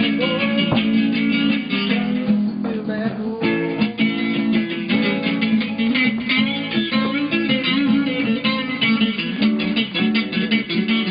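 Guitar music, many quick plucked notes.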